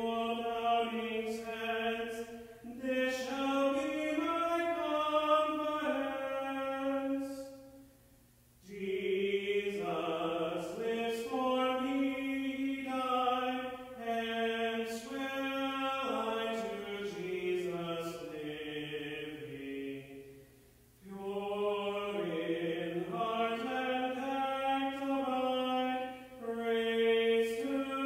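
A man's solo voice singing a hymn unaccompanied, holding and stepping between sustained notes in long phrases, with two brief pauses about eight seconds in and about twenty seconds in.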